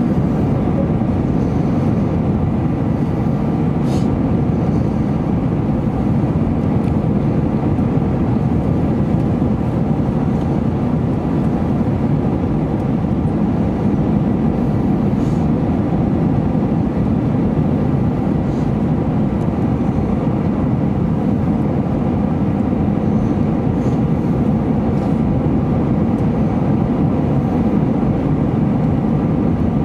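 Airbus A321 cabin noise in flight: a steady drone of engines and airflow heard through the fuselage, with a faint steady whine riding above the rumble.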